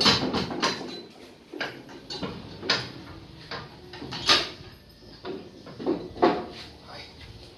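Metal-on-metal knocks and clunks from a Suzuki car gearbox being handled and worked into place during installation. A quick run of knocks comes first, then single clunks every second or two.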